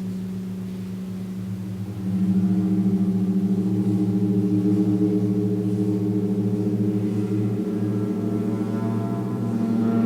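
Large gong played continuously, its deep humming tones sustained and swelling louder about two seconds in, with higher overtones building up towards the end.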